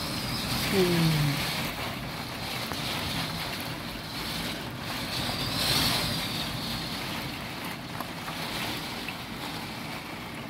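Torrential typhoon rain and wind beating against a window and balcony, a steady rush of water that swells with a gust about six seconds in.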